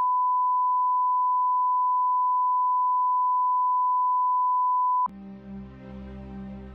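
Steady 1 kHz line-up test tone, a single pure pitch that goes with broadcast colour bars, cutting off abruptly about five seconds in. Quieter gentle music starts right after.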